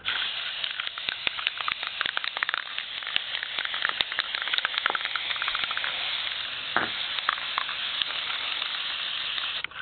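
Aerosol can of gold spray paint spraying in one long continuous hiss with spitting crackles, cutting off sharply near the end.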